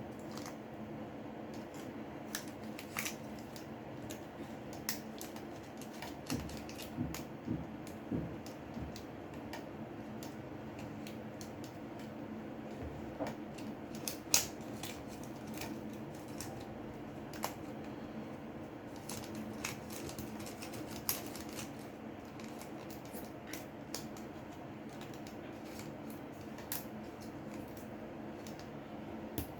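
Scattered light clicks and scrapes of a pry tool working the screen loose from a Samsung Galaxy J6, the loudest click about halfway through, over a steady low hum.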